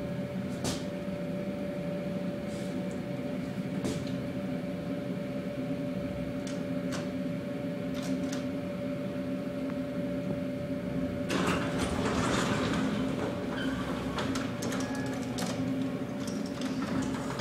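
Traction elevator car in motion, a steady hum with a few light clicks; about eleven seconds in the doors slide open and street noise comes in.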